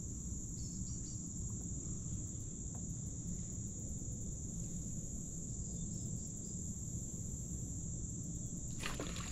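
Steady, high-pitched chorus of insects droning without a break over a low, even rumble, with a few brief clicks near the end.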